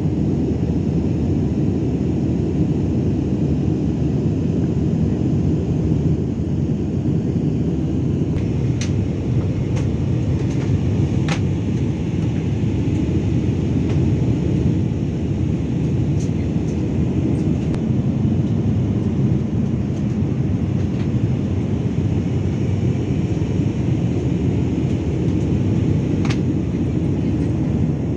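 Steady roar of a jet airliner's engines and airflow as heard inside the passenger cabin in flight, deep and even, with a few faint clicks.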